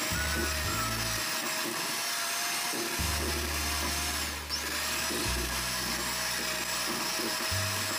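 Electric hand mixer running, its beaters creaming butter and sugar in a stainless steel bowl: a steady motor whine that dips briefly about halfway through, with background music underneath.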